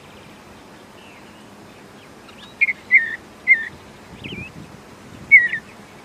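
Bluebird calling: a few short, separate call notes that dip in pitch, three in quick succession a little before the middle and the loudest one near the end, over a steady faint outdoor hiss.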